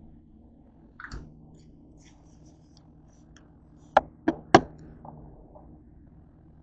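Things being set down and handled on a kitchen countertop: a soft knock about a second in, then three sharp knocks in quick succession about four seconds in, the loudest sounds here.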